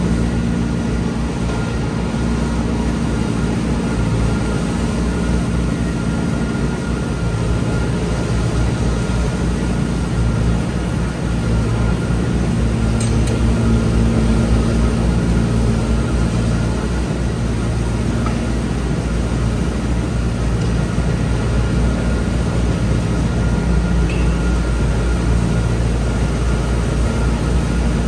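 Tractor-drawn Teagle bale processor shredding a straw bale and blowing the straw out of its side chute: the engine and the machine's rotor and fan run steadily, with a thin steady whine above the low engine noise.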